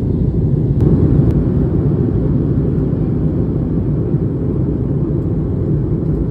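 Passenger airliner's engines and airflow, heard from inside the cabin as a steady, deep rumble. Two short clicks come about a second in.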